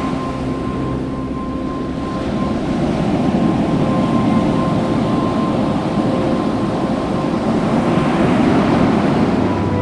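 Ocean surf rushing and swelling twice, with steady held musical tones over it.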